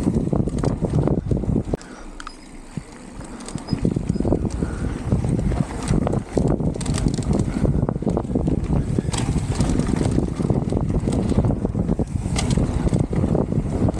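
Mountain bike descending a dirt and gravel trail at speed: tyres rolling and crunching over the surface with frequent rattles and knocks from the bike over bumps, under steady wind buffeting on the camera microphone. The noise drops briefly about two seconds in.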